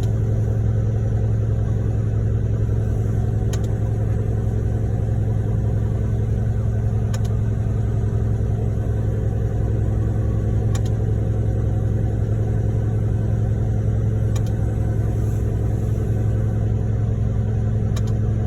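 Heavy diesel truck engine running steadily at a constant speed, a low drone with no change in pitch. A faint short click comes about every three and a half seconds.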